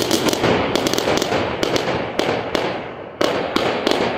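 Aerial fireworks bursting overhead: a dense crackle of glitter stars with many sharp pops and cracks. A fresh volley of loud bangs starts about three seconds in.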